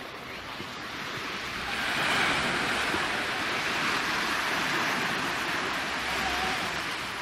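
Small waves breaking on a sandy beach: a rush of surf that swells about two seconds in, holds, and slowly fades.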